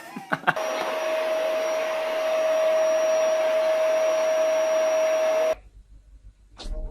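An electric appliance motor running with a steady whir and a constant hum, starting after a couple of clicks and cutting off suddenly.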